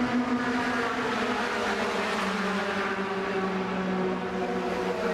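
Racing pickup trucks' engines running at speed on an oval track, a steady engine drone with several tones layered together. The main engine note steps down in pitch about a second and a half in.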